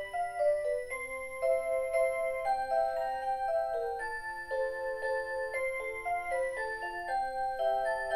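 Rhythm Clock Aria Cantabile melody alarm clock playing a Christmas song: an electronic melody in several voices, with notes changing about every half second.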